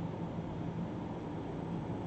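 Steady room background noise: an even hiss with a faint low hum.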